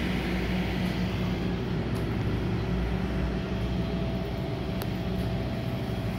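Steady low machinery hum, unbroken throughout.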